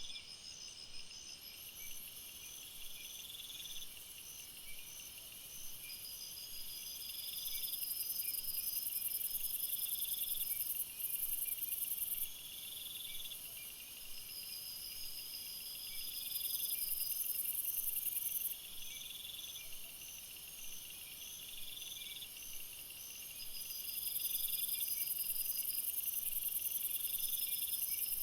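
Jungle ambience of insects calling together: a high, even buzzing that swells louder three times for several seconds each, over rows of shorter pulsed chirps that repeat every few seconds, each row lasting about two seconds.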